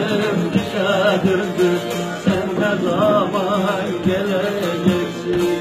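Bağlama (long-necked Turkish saz) played with a steady drone and regular plucked strokes, under a man singing a Turkish folk melody with much ornament. He holds one long note near the end.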